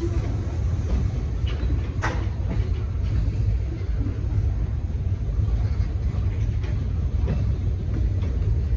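Freight cars rolling past at close range: a steady low rumble of steel wheels on the rails, with scattered clanks and clicks from the cars, the sharpest about two seconds in.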